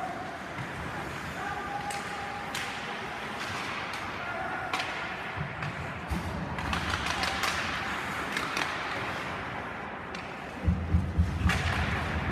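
Ice hockey play in an echoing arena: sticks and puck clacking and skates scraping on the ice, with a few brief shouted calls. Near the end comes a run of heavy low thumps.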